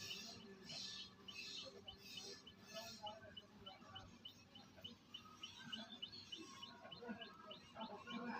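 Faint bird chirping: a short high chirp repeated evenly, about three times a second. A few soft hissing strokes come in the first three seconds.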